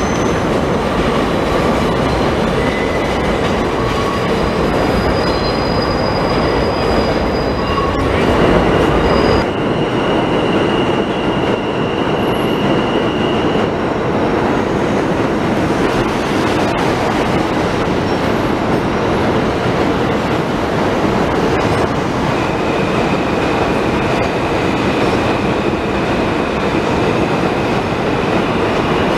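New York City subway train running over an elevated steel viaduct: a loud, steady noise of wheels on rails and steel structure, with high-pitched wheel squeals that come and go.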